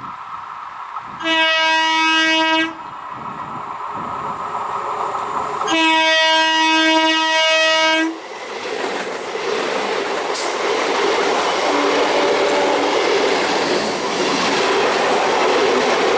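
Indian Railways electric train horn sounding twice: a short blast, then a longer one of about two seconds. After the second blast comes the loud rolling rumble and clickety-clack of the train running past on the rails.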